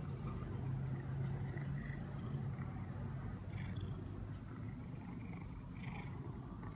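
Domestic cat purring close to the microphone, a steady low rumble.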